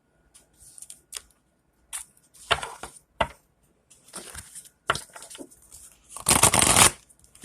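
Tarot cards being handled: scattered light clicks and rustles, then a longer, louder rustle of cards near the end.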